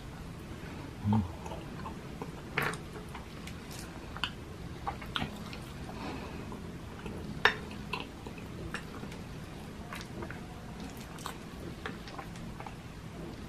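Close-up chewing and soft, wet mouth sounds of eating spoonfuls of champorado, a sticky chocolate rice porridge, with scattered sharp clicks of the metal spoon and a short hum about a second in.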